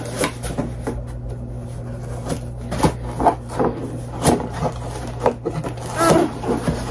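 Scissors cutting and prying at a cardboard shipping box: scattered snips, scrapes and knocks of handling. There is a brief strained grunt about six seconds in.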